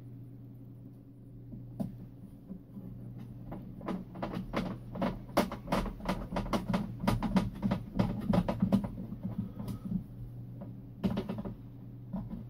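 Philips 22RB212 transistor radio crackling and popping through its speaker over a steady hum while a front knob is turned. The pops come thick and irregular for several seconds, then fade out, with a short burst again near the end.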